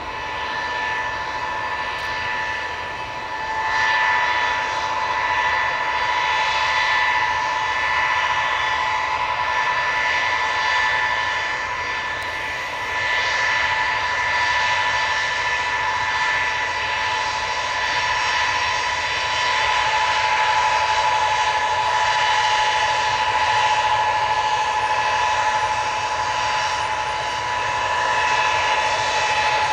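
The three Soloviev D-30KU-154 turbofans of a Tupolev Tu-154M whining steadily at taxi power: two steady high tones over a continuous rushing hiss, swelling and easing a little in level.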